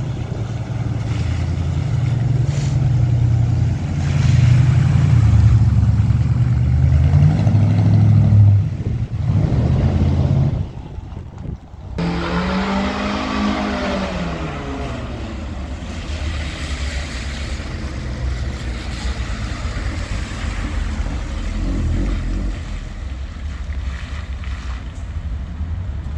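Classic car engines running and pulling away, a loud low engine note for the first ten seconds or so. After a sudden break, one engine's pitch rises and falls over a few seconds, then a lower steady engine rumble carries on.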